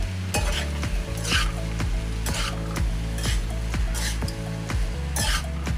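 Spatula scraping and stirring diced tofu around an aluminium wok, in strokes about once a second, over the sizzle of frying.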